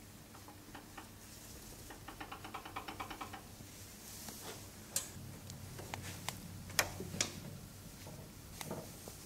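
Rubber impeller being worked out of and back into the housing of a water jetting machine's impeller pump. A quick run of about ten ticks a second comes first, then a few scattered sharp clicks and knocks.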